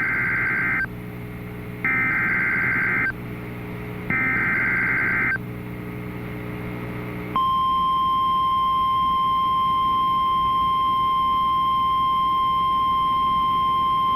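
NOAA Weather Radio Emergency Alert System tones: three short bursts of screechy digital SAME header data about two seconds apart, then, about seven seconds in, the steady single-pitch 1050 Hz weather radio alert tone starts and holds.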